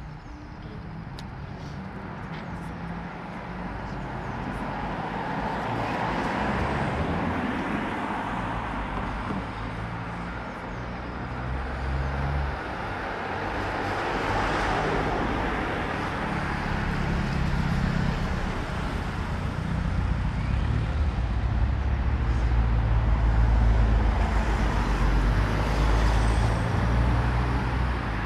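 Road traffic passing, cars swelling and fading several times, over a low rumble that grows louder near the end.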